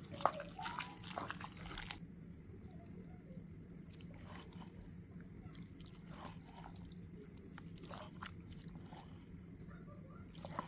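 A wooden spoon stirring cooked pasta in a clay pot: soft wet squishes and scrapes, busiest in the first two seconds, with a sharp knock just after the start and a steady low hum underneath.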